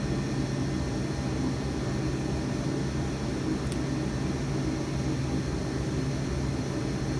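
Steady low mechanical hum from running shop equipment, unchanging in pitch and level.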